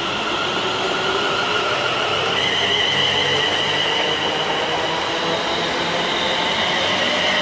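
A London Northwestern Railway Class 350 Desiro electric multiple unit running along the platform, its traction motors giving a steady whine of several tones over the rumble of the train. The whine shifts in pitch about two seconds in.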